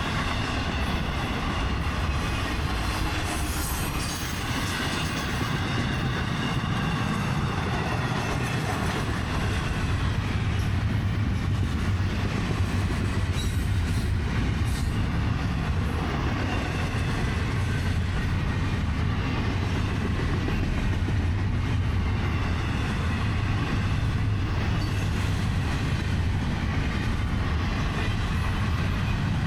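Freight cars of a long Florida East Coast Railway freight train rolling past at speed: a steady rumble of steel wheels on rail, with a faint high wheel squeal wavering over it.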